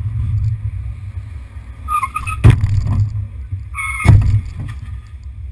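Steady low engine and road rumble of a car, with two short car-horn honks about two seconds apart. Each honk is followed by a sharp thud, and these thuds are the loudest sounds.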